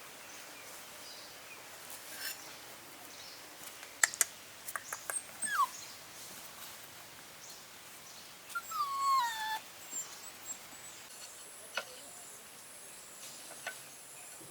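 Puppy whining: a short falling whine about five and a half seconds in, then a longer falling whine around nine seconds, with a few sharp clicks just before the first.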